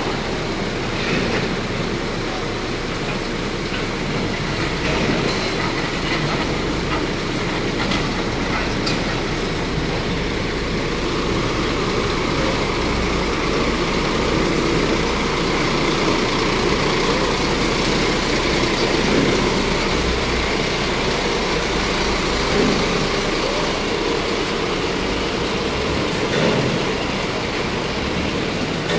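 Steady urban traffic noise: a continuous rumble of vehicle engines and tyres on the road.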